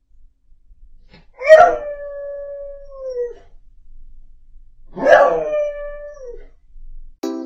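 A dog howling twice, each a long, steady-pitched call that falls off at the end.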